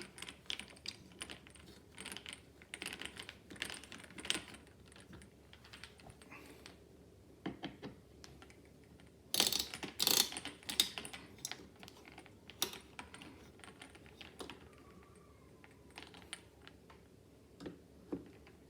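Screws being driven to fasten a CPU heat sink onto a motherboard: irregular small clicks, taps and scrapes of the screwdriver and metal parts, with a louder clatter of handling about nine to ten seconds in.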